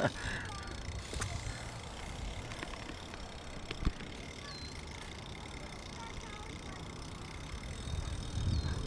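BMX bike rolling over wet skatepark concrete: a steady rolling noise with low rumble, and a single sharp knock about four seconds in.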